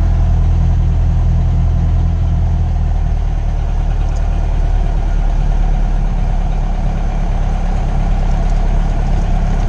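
Cessna 172S's fuel-injected four-cylinder Lycoming engine and propeller idling steadily at about 1,000 RPM just after a fuel-injected start, heard loud from inside the cockpit.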